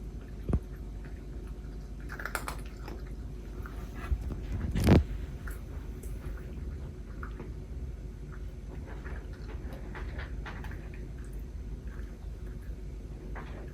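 Cats eating: soft chewing and small crunching clicks, with one louder knock about five seconds in.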